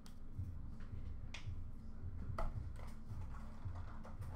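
Quiet room tone with a steady low hum and a few faint clicks as trading cards are handled and set down.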